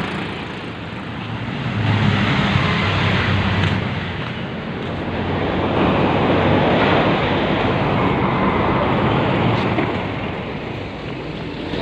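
A steady rushing noise that swells and fades, with a low engine hum about two seconds in: vehicle and traffic noise, with wind on the microphone.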